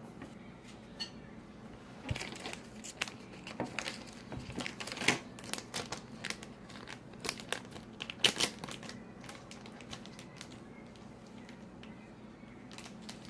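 Crinkling and short clicks of trading cards and their packaging being handled, busiest in the first two-thirds and sparse near the end.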